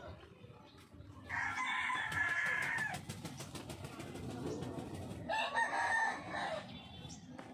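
A rooster crowing twice, each crow a little over a second long, the first about a second in and the second about five seconds in.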